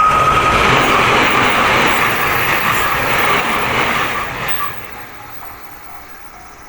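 Train passing over a level crossing: a loud rush of wheel and running noise that drops off sharply near the end as the train clears. The Japanese crossing alarm rings on underneath at about two strokes a second.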